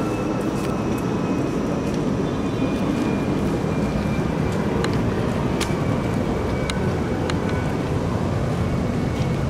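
Steady low mechanical rumble of city background noise, with a faint high steady hum over it and a few light clicks.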